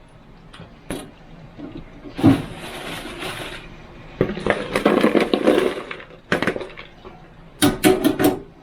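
Kitchen handling noise: dishes and utensils knocking and clattering in sharp clicks. Two longer stretches of rushing, rattling noise come in the middle, the second the loudest.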